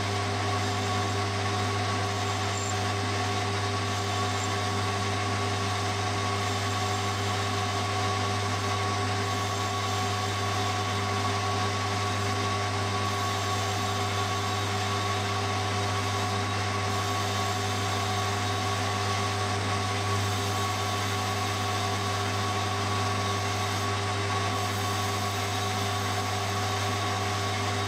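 Metal lathe running steadily with the crankcase casting spinning on the faceplate as a tool cuts a taper into the venturi mouth; a constant hum with several fixed tones above it, unchanging throughout.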